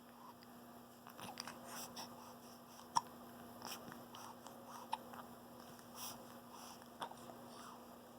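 Newborn baby hiccupping: small sharp hiccups about every two seconds, three stronger than the rest, with softer mouth noises between. Newborn hiccups like these are normal.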